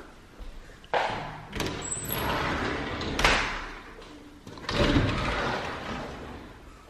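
Mirrored sliding closet doors rolling along their track as they are pushed open, in two or three rumbling runs with sharp clacks, about a second in and again near five seconds.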